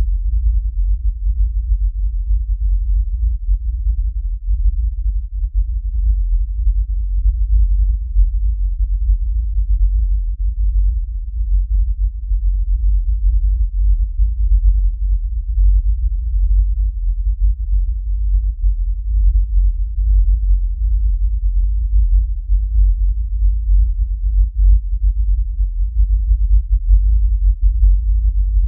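Sonified acoustic waves of the Sun: solar oscillation data sped up into the range of hearing, heard as a deep, low-pitched drone that flickers in loudness without pause.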